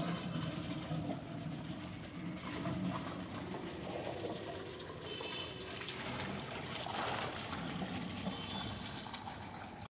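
Water pouring and splashing into a big steel tub as large plastic water-cooler bottles are emptied upside down into it.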